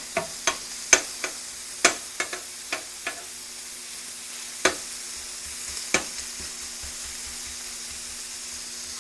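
Diced bacon sizzling on a flat-top griddle in hot oil and butter, a steady frying hiss. A quick run of sharp clicks and taps in the first three seconds, and two more a little later.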